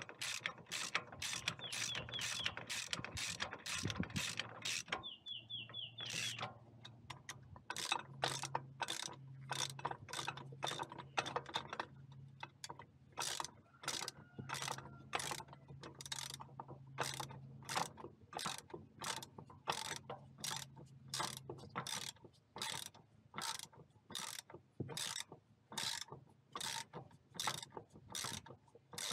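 Hand socket ratchet clicking in a steady rhythm, about two clicks a second, as 16 mm nuts and bolts are tightened down.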